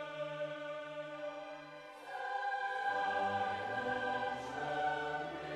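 Background choral music: a choir singing long held notes, the chord changing about two seconds in and deeper low notes joining soon after.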